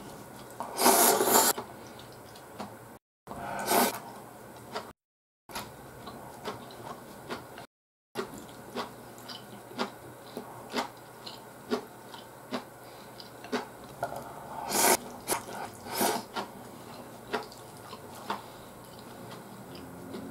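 A person slurping and chewing ramen noodles: loud slurps about a second in, about four seconds in and twice near the end, between many small wet chewing clicks. A few brief silent gaps cut into it.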